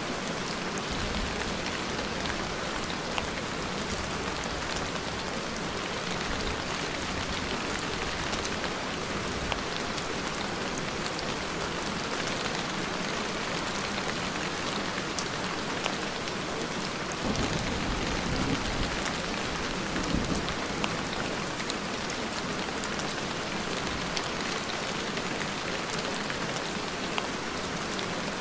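Steady rain falling, with scattered drop ticks. A soft low rumble swells briefly about two-thirds of the way in.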